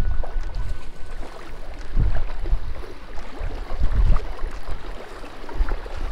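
Wind buffeting the microphone in gusts, with faint splashing and small scattered clicks.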